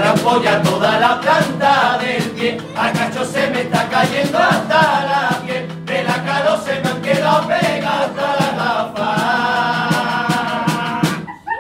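Chirigota group of men singing together in unison over steady drum beats. About nine seconds in they hold a long final chord, which stops abruptly just before the end.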